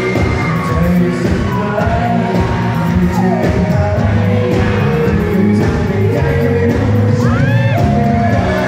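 Live pop band playing with a male singer, fans shouting and whooping over the music; a few high cries from the audience stand out near the end.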